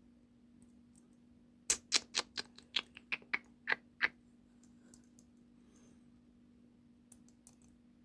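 A quick run of about ten sharp metallic clicks and taps over two seconds, some with a brief ring, then a few faint ticks: a small metal lock and picking tools being handled while the lock is worked apart.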